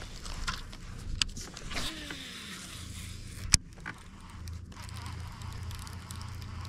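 Electric trolling motor humming steadily as the boat moves along, with a few light clicks and one sharp knock about three and a half seconds in.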